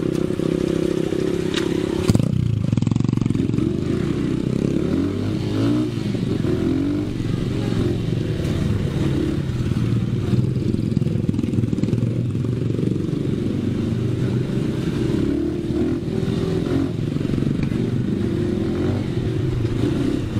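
Dirt bike engine running, its pitch rising and falling as the throttle is worked, with a sharp knock about two seconds in.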